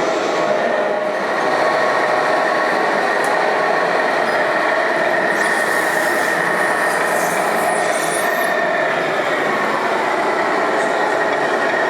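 RC model trucks running: a steady mechanical whine with a held high tone over a noisy rumble.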